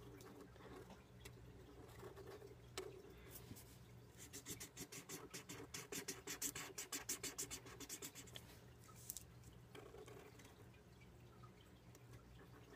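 Felt-tip marker scratching on paper in quick back-and-forth strokes, colouring in a drawn heart. The strokes are faint and come several a second, busiest from about four to nine seconds in.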